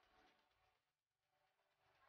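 Near silence, with faint rustling of a rambutan's hairy peel being worked open by hand.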